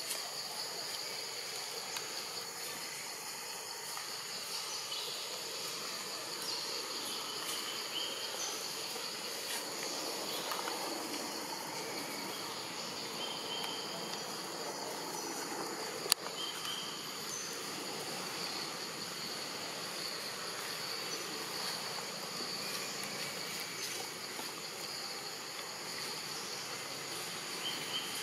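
Steady insect chorus, a constant high-pitched buzz, with a few short high chirps scattered through it and one sharp click about sixteen seconds in.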